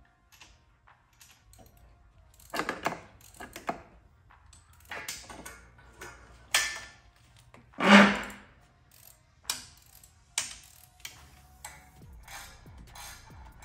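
Irregular clicks, clacks and knocks of hands working in a car's engine bay, fitting spark plug wires and handling plastic parts. The loudest, a knock with a dull thud, comes about eight seconds in.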